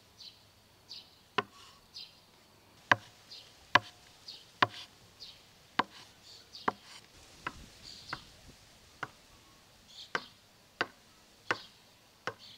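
Chef's knife chopping hard-boiled eggs on a wooden cutting board: more than a dozen sharp knocks of the blade hitting the board, unevenly spaced, roughly one a second.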